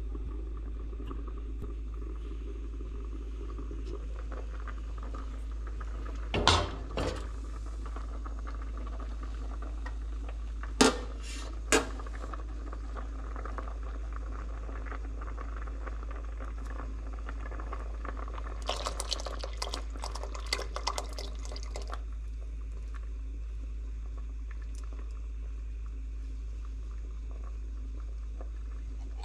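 A pot of beans for rice and peas boiling on a gas stove, a steady bubbling, with a few sharp metal clinks about six and eleven seconds in. A crackly stretch of metal scraping and pouring comes about two-thirds through as a pull-tab can of coconut milk is opened and emptied into the pot.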